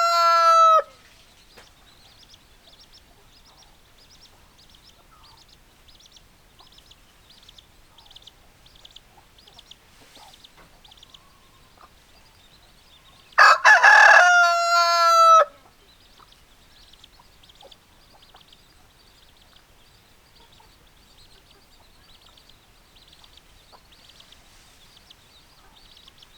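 Rooster crowing: the end of one crow in the first second, then a full crow about 13 seconds in, lasting about two seconds and ending in a long drawn-out note. Faint rapid high chirping runs underneath between the crows.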